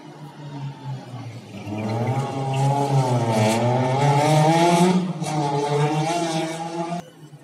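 Rally car engine revving hard as the car accelerates past, its pitch wavering up and down with the throttle. The engine dips briefly about five seconds in, picks up again, then cuts off suddenly near the end.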